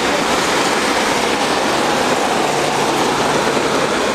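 Traffic on a flooded, rain-soaked road: a steady hiss of car tyres spraying through standing water as cars pass.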